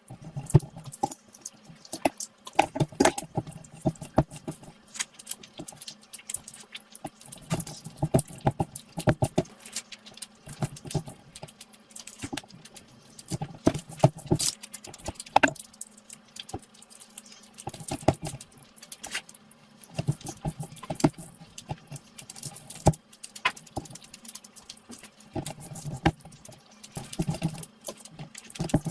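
Close-miked eating sounds: wet chewing and lip smacking, a dense irregular run of small clicks and smacks with soft low thumps in clusters.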